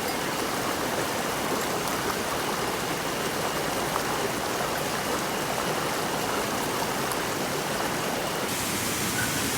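Water of a small mountain stream running steadily, an even rushing hiss.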